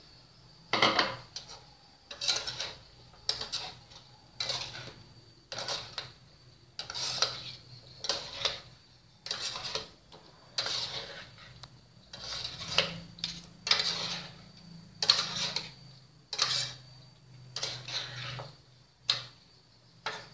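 Metal spatula scraping and tossing pineapple chunks and beef liver around a wok while stir-frying, in repeated strokes about once a second.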